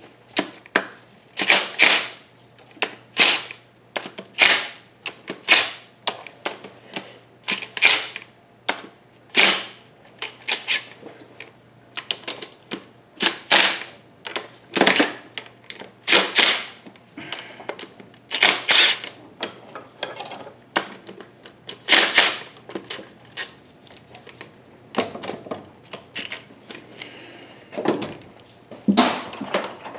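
Hand socket ratchet clicking in short bursts, one burst roughly every second with irregular gaps, as small bolts are worked loose or run in on the engine.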